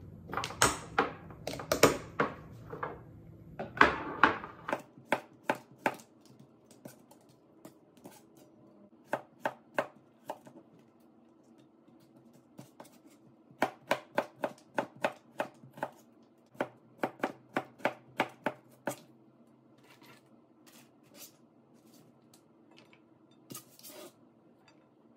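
A knife slicing a cucumber on a thin cutting mat: runs of quick, even cuts at about four a second, with pauses between the runs. In the first few seconds there is louder clatter as a lid is fitted onto a small glass jar of sauce and the jar is handled.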